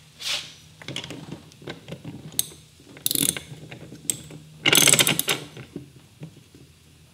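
Steel blade, loosened nut and square washer of a Ryobi lawnmower being worked off the blade spindle by hand. Short metallic clicks and rattles, with a longer run of quick rattling clicks about five seconds in.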